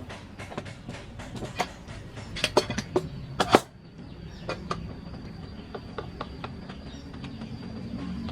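Hand wood carving: a mallet tapping a carving chisel into wood in irregular sharp taps, thickest and loudest around the middle.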